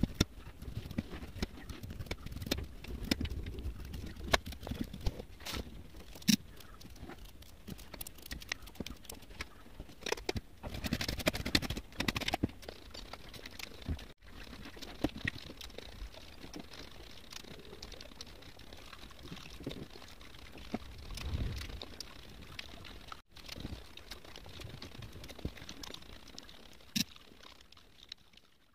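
Sharp clicks and taps of a knife slicing a raw cucumber over a steel plate, then the crunching of the cucumber slices being eaten.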